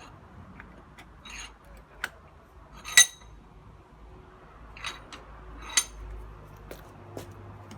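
Sledgehammer blows on a steel bicycle U-lock held in a vice: two sharp metallic strikes with a brief ring, about three seconds apart, with a few lighter knocks between them.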